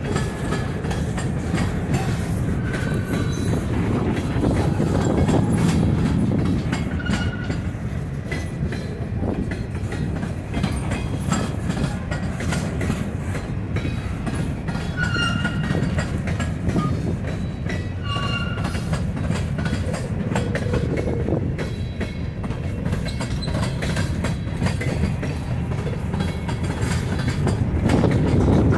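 Freight cars of a long freight train, centerbeam flatcars and covered hoppers, rolling steadily past close by. Their wheels click-clack over the rail joints over a continuous rumble, with a few brief high-pitched wheel squeals now and then.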